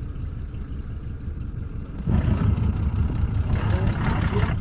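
Black C3 Chevrolet Corvette's V8 rumbling at low revs, then revving louder about two seconds in as it pulls away.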